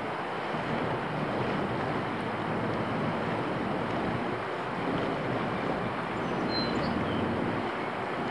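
Steady rushing outdoor background noise, with a brief faint high chirp about six and a half seconds in.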